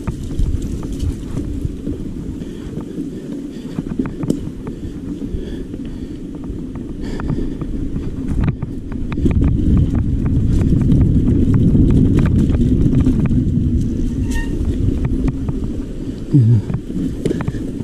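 Mountain bike being ridden over a rough trail: steady wind rumble on the microphone with frequent rattles and knocks from the bike over bumps, growing louder for a few seconds in the middle.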